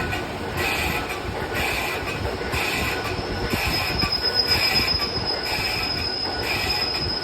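Lathe cutting tool turning a cast iron pump part: a steady metallic screech of the cut that swells about once a second with each turn of the work. A thin high whine comes in about halfway.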